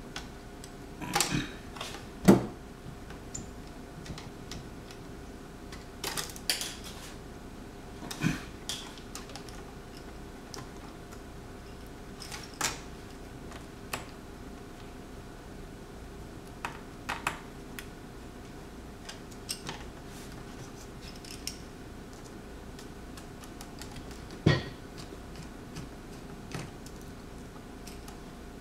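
Scattered clicks, taps and knocks of hands and a small screwdriver on a laptop's opened screen assembly as the LCD panel's side mounting screws are taken out. The loudest knocks come about two seconds in and near the end, over a faint steady hum.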